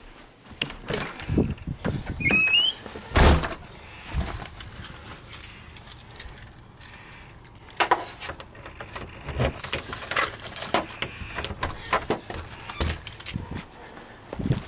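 Footsteps and camera-handling clatter from someone walking through a door and down concrete steps. A short rising squeak comes about two seconds in, followed by a loud thump.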